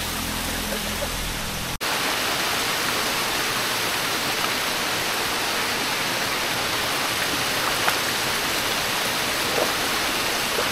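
Steady rush of small waterfalls spilling into a spring-fed pool, with a few light splashes in the second half as a person wades in.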